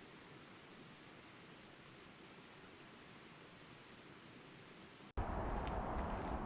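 Insect chorus: a steady, faint, shrill drone at two high pitches. About five seconds in it cuts off abruptly, and louder low rumbling noise with a few faint clicks follows.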